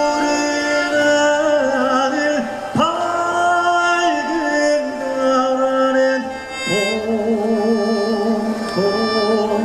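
A male Korean folk singer (sorikkun) sings a slow song into a microphone, accompanied by a gugak orchestra of traditional Korean instruments. He holds long notes, starts new phrases about three seconds in and again near seven seconds, and sings the later notes with a wavering vibrato.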